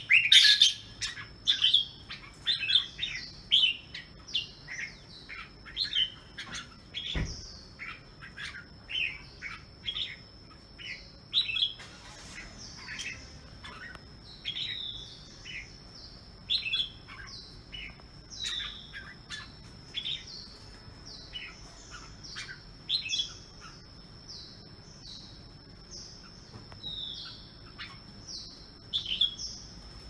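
An albino (white) red-whiskered bulbul singing in its cage: a long run of short, varied whistled phrases, busier and louder in the first half and sparser later. A thin steady high tone runs underneath, and there is a single knock about seven seconds in.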